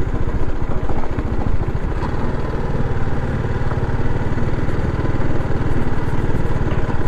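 TVS Apache RR 310's single-cylinder engine running at steady, low revs as the motorcycle is ridden along a rough dirt trail.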